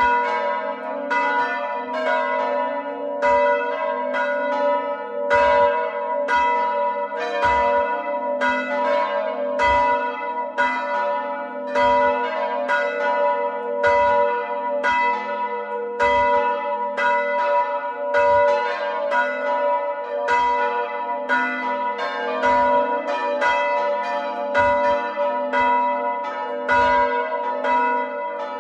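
Hand-rung church bells from a ring of four (the tenor in A cast by De Poli in 1921, the other three by Paolo Capanni in 1951) ringing in a steady, repeating pattern of strikes, with a heavier low stroke about every two seconds.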